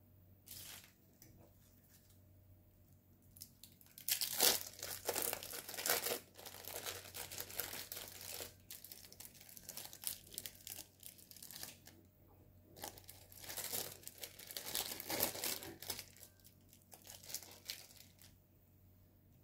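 Thin plastic wrapping crinkling and rustling in bursts, starting about four seconds in, as individually wrapped sandwich cheese slices are peeled open by hand.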